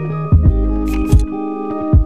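Background music: sustained keyboard chords over a drum beat of low kick thuds and sharp snare hits.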